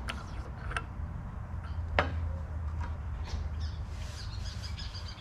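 Light metal clicks as a new manual valve is slid into its bore in a Chrysler 727 TorqueFlite valve body, the sharpest about two seconds in, over a steady low hum. Faint bird chirps come in during the second half.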